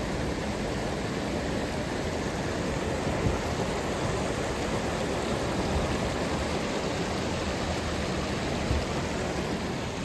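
Flood-swollen creek rushing over rocks: a steady, even roar of running water, with a few faint knocks.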